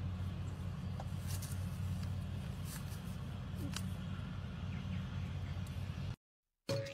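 A steady low mechanical hum with a few faint clicks over it; it cuts out about six seconds in.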